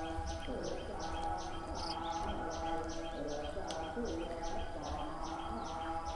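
A bird chirping rapidly in the background: short high chirps in an even rhythm, about five a second, over a steady low hum.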